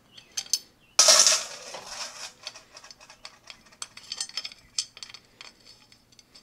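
Small metal clicks and clinks of Torx screws being worked loose from a Harley-Davidson Sportster's derby cover by hand, with one loud metallic clatter about a second in.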